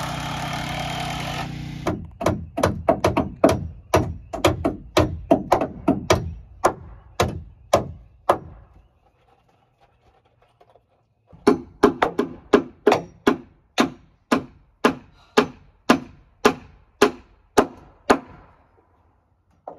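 Hammer driving nails into wooden framing: a fast run of sharp strikes, about three a second, a pause of a few seconds, then a second run of strikes. A steady hum is heard for the first second or so before the hammering begins.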